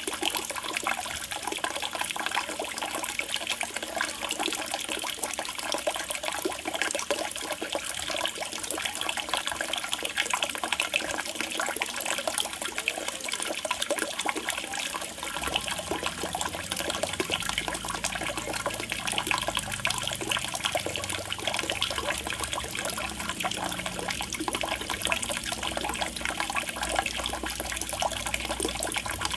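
Steady trickling and splashing of water falling into a koi pond. A low rumble joins about halfway through.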